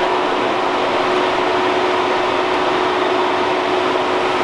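Saab 9-3 V6 turbo engine, fitted with a bigger turbo, running steadily at idle in the open engine bay: an even whirring hum with one held tone.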